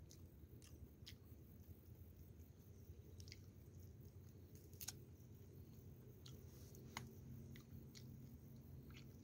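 Near silence: a low steady hum with about a dozen faint, scattered clicks and small crunches.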